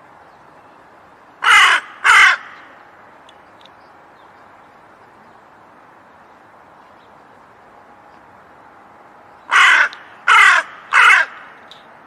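Crow cawing: two harsh caws about a second and a half in, then a run of three caws near the end, over faint steady background noise.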